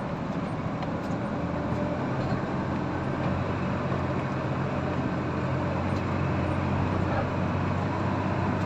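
Caterpillar 320 excavator's diesel engine running steadily while working, getting a little louder toward the end.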